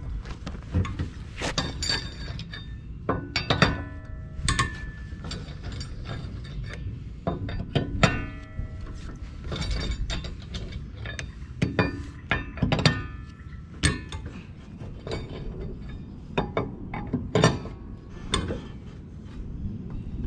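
Lug nuts on a Mazda Miata's rear wheel being loosened with a socket wrench: irregular ratchet clicking and knocks, with metal clinks that ring briefly.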